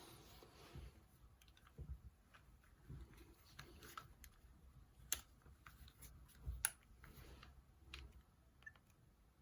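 Faint scattered clicks and soft knocks, with two sharper clicks just past the middle: a Nokia 6260 mobile phone's keys being pressed and the phone handled.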